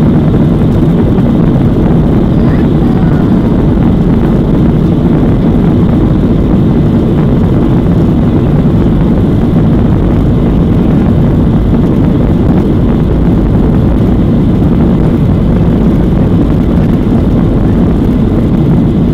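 Boeing 737-800's CFM56-7B turbofans at take-off power during the take-off roll, with the wheels rolling on the runway, heard from inside the cabin as a loud, steady, low rush of noise.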